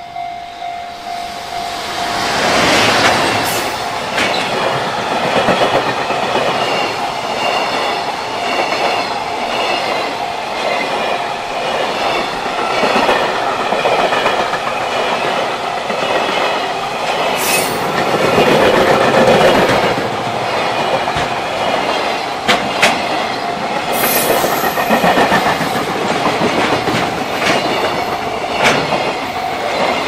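Container freight train behind a JR Freight EF210 electric locomotive passing close by: a loud, steady rumble of wagons with wheels clicking over the rail joints, swelling about two seconds in as the train arrives. A level-crossing warning bell rings steadily underneath, and a few sharp clanks or squeals stand out near the middle and toward the end.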